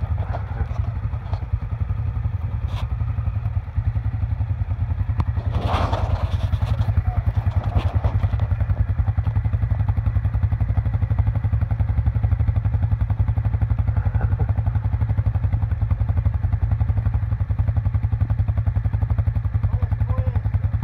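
Suzuki KingQuad 750's single-cylinder four-stroke engine running steadily with an even low pulsing exhaust note. A short burst of louder noise comes about six seconds in.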